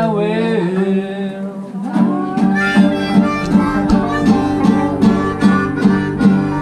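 A man singing to an acoustic guitar; the voice stops about a second and a half in, and the guitar carries on with steady rhythmic strumming of repeated chords, about three strums a second.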